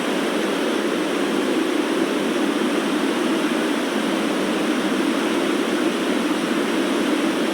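Wind sound effect: a steady, even rush of wind that holds at the same level without gusts.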